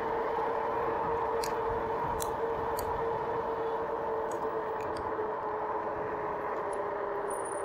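Rad Power RadRover electric fat bike cruising on a paved street: a steady whine over tyre and wind noise, dropping slightly in pitch near the end as the bike slows, with a few faint ticks.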